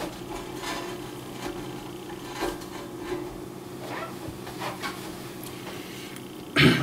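Soft kitchen handling sounds: scattered light knocks and scrapes as a spatula is fetched and used to move a cheese-topped chicken patty, over a steady low hum. One short, louder sound comes near the end.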